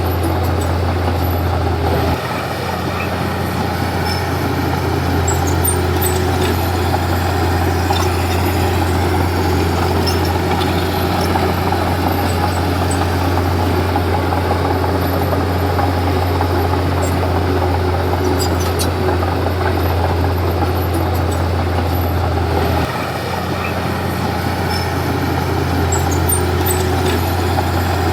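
Komatsu D31P bulldozer's diesel engine running steadily under work, with faint clanks over the low hum. The engine note drops for a moment about two seconds in and again near the end.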